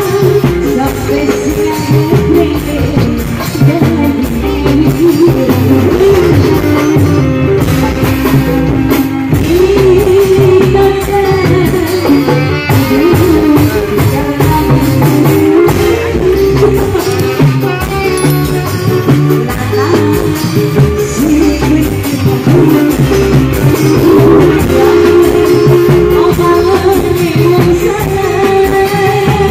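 A woman singing a dangdut song into a microphone, over a live band accompaniment.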